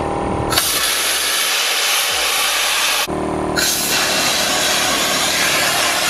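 Pressure-pot sandblaster blasting walnut-shell media against a rusted truck rocker: a loud rushing hiss of air and grit. It starts about half a second in, cuts off briefly around three seconds, then resumes.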